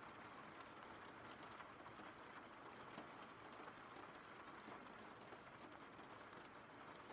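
Faint, steady rain with scattered drop ticks.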